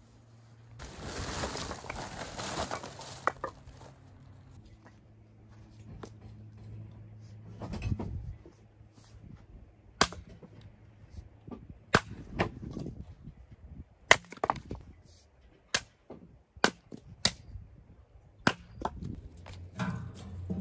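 Firewood being worked: a string of sharp wooden knocks and cracks, about a dozen, one every second or so through the second half, after a brief rush of rustling noise near the start.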